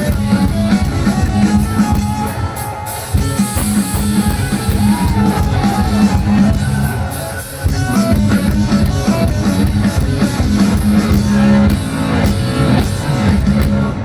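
Band music playing an instrumental passage of a Bengali folk-style song, with a drum-kit beat, guitar and a strong, steady bass line.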